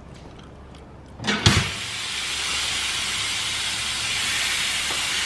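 A single knock, then a steady hiss of compressed air that starts just after it, about a second and a half in, and keeps going.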